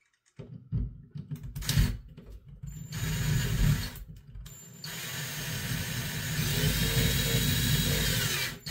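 Cordless drill driving a screw up through a drywall patch into the ceiling: a few short, stop-start runs, then one longer steady run with a faint motor whine from about halfway, stopping just before the end.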